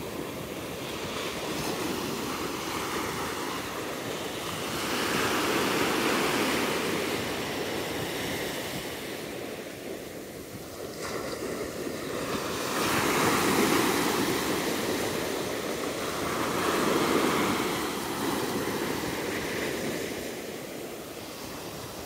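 Small ocean waves breaking and washing up onto a sandy beach, a rushing hiss that swells and fades several times.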